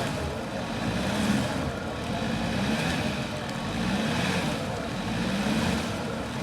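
Off-road 4x4 engine revving up and falling back repeatedly, about once every second or so, as if working against deep mud.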